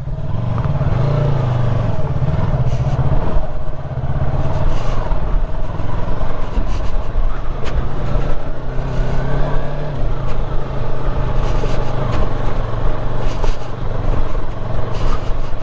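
Yamaha sport motorcycle engine running under way on a rough dirt track, its note rising and falling with the throttle. There is a brief dip about three and a half seconds in.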